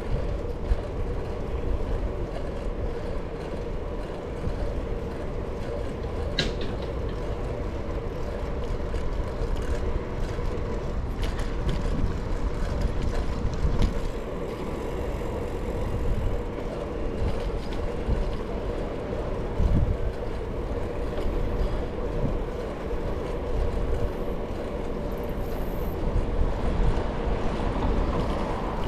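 Steady rumble of a bicycle ride on a camera's microphone: wind buffeting and tyres rolling, with a faint steady hum and a couple of sharp clicks.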